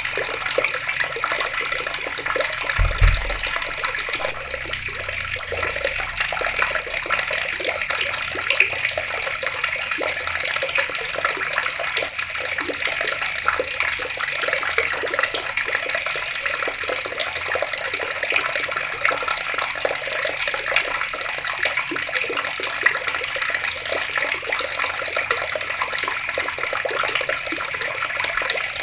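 Water running steadily from a tap in an even, unbroken rush. A brief low thump about three seconds in.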